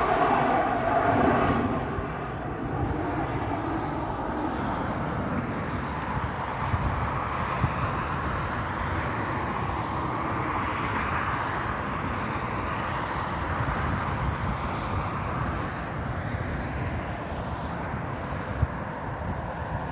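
Jet aircraft engine noise: a close, loud pass fading over the first two seconds, then steady jet engine noise from farther off.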